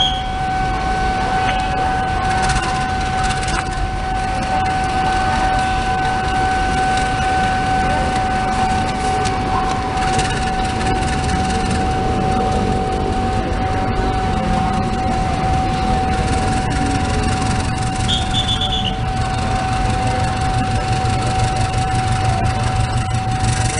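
A railway level-crossing warning alarm holds one steady high tone over street and crowd noise. In the last few seconds the low engine rumble of an approaching diesel locomotive builds.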